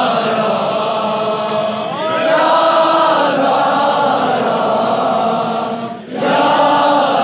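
Crowd of men chanting a devotional Urdu lament in unison, the held, wavering lines rising and falling, with a brief break about six seconds in before the chant resumes.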